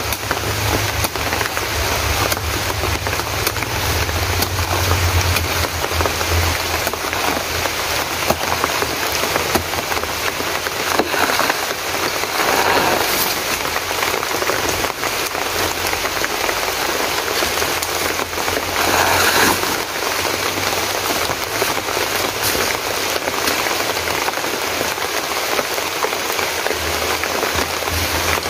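Steady pattering water noise, dense and even, with two louder swells around twelve and nineteen seconds in.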